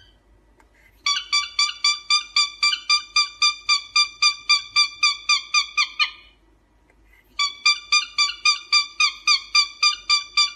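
Cockatiel calling in a rapid run of short, repeated whistled notes, about five a second. The notes stop for about a second and a half, then a second run begins.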